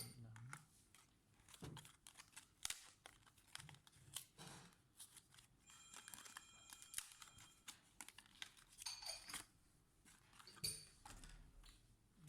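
Faint crinkling and rustling of plastic packaging, with scattered small clicks from handling laptop parts. A brief ringing tone sounds about six seconds in.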